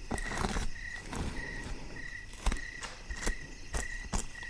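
Crickets chirping steadily, a short high chirp repeating two to three times a second, with a few sharp clicks scattered through it.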